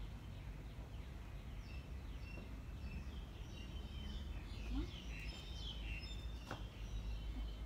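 Birds chirping, many short calls over a steady low rumble, with one sharp knock about six and a half seconds in.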